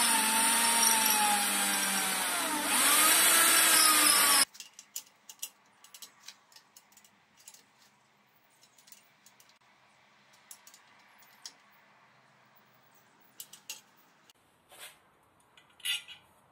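Electric hand drill boring into a metal bracket, its motor whine dipping and recovering as the bit bites. It cuts off abruptly about four seconds in. After that come only scattered light clicks and taps of metal parts and hand tools being handled.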